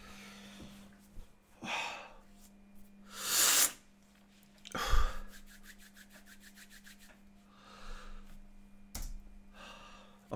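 A man crying: several sniffs and heavy, shaky breaths a second or two apart, with a quick stuttering run of catches in the breath around six seconds in.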